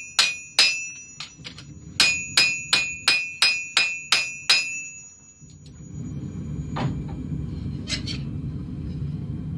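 Hammer blows on a red-hot khukuri blade over a Ridgid Peddinghaus steel anvil, each strike ringing with a clear high tone: two blows, a short pause, then about eight more at roughly two and a half a second, stopping about five seconds in. After that a steady low rumble with a couple of light metal clinks.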